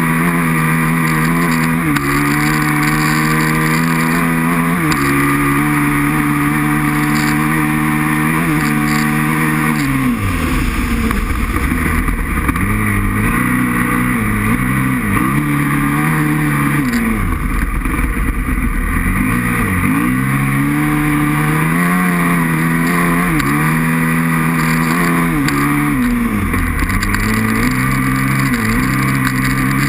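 Aprilia RXV 550 V-twin motorcycle engine revving hard. It climbs through the gears with stepped shifts and drops away several times as the throttle is closed, then picks up again.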